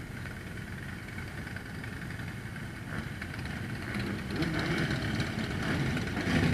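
A line of motorcycles riding slowly past at low revs, their engines running together. The engine sound grows louder about halfway through as bikes pass close by.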